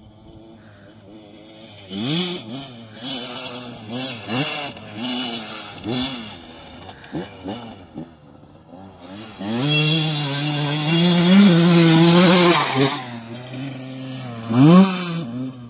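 Yamaha YZ125 two-stroke dirt bike engine revving on a motocross track. It rises and falls in short revs about once a second, then is held at high revs for about three seconds past the middle, with one last sharp rev near the end.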